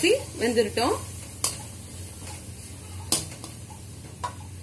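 Metal slotted ladle knocking and scraping against an aluminium kadai while carrots and peas are stirred, with a few sharp knocks spread through the stirring.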